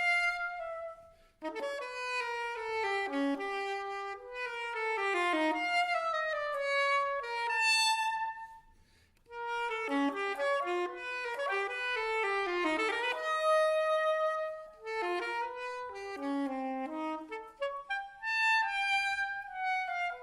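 Background music: a solo wind instrument, saxophone-like, plays a melody in phrases, one note at a time, with short pauses between phrases.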